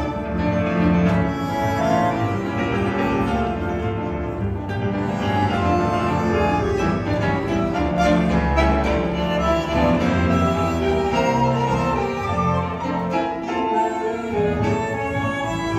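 Tango ensemble playing a milonga live, pitched melody lines over a steady, repeating bass beat.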